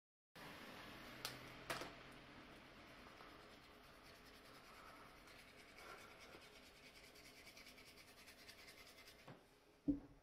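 Faint room tone with a steady hiss, two light clicks about a second and a half in, and a single dull thump near the end.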